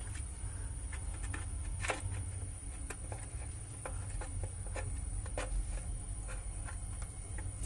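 Light plastic clicks and taps, scattered irregularly, from handling and fitting the parts of a wall-mounted toothpaste dispenser, over a low steady hum.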